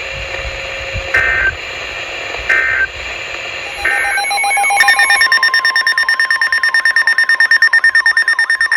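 Emergency Alert System data tones: three short bursts of warbling digital tones about a second and a half apart, the end-of-message signal of the finished warning. About five seconds in, a loud electronic alert tone starts, pulsing rapidly, announcing the next warning.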